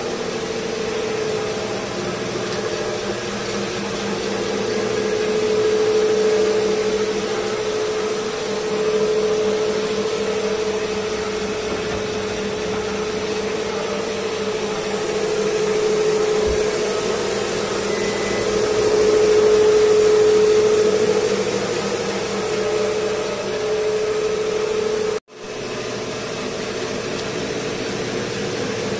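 Rotowash floor machine running over wet travertine tile: a steady motor drone with a constant hum and the hiss of its cylindrical brushes, swelling and easing in loudness as it is worked across the floor. The sound drops out for an instant a few seconds before the end.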